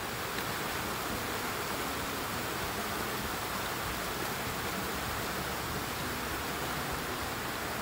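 Rocky stream rushing steadily, an even hiss of running water.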